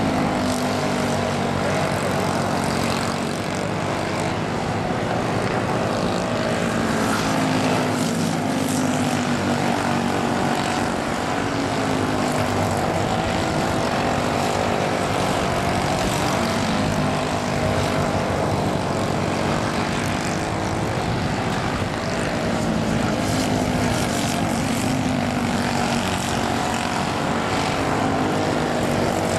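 Engines of small race cars running laps on an oval, their pitch rising and falling again and again as the cars throttle through the turns and pass.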